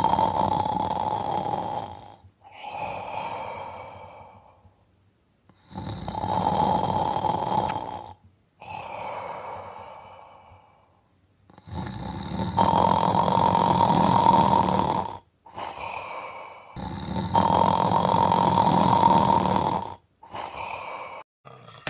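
A man snoring heavily in his sleep: a loud, rasping snore about every five or six seconds, each followed by a quieter breath.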